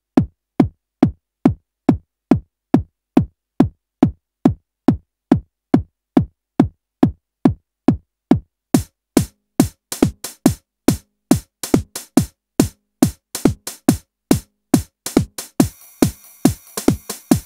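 Drum machine playing a techno beat: an even, steady kick drum, each hit dropping in pitch. About halfway through, crisp hi-hat hits join between the kicks, and near the end a hissy synth layer with steady high tones comes in.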